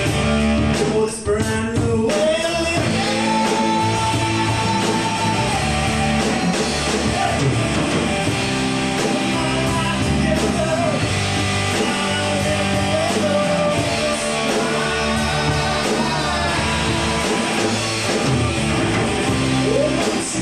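Live rock band playing: electric guitar, bass guitar and drum kit, with a voice singing over them.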